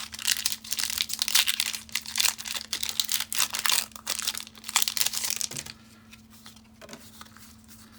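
Foil wrapper of a Pokémon booster pack being crinkled and torn open, a dense crackling that goes on for about five and a half seconds and then drops to a few faint handling clicks.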